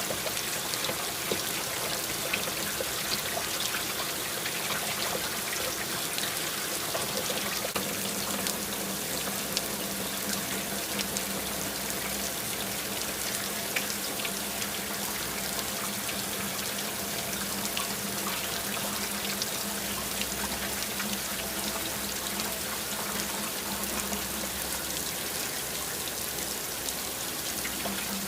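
Water running and trickling steadily, full of small splashes, with a low steady hum underneath for much of the time.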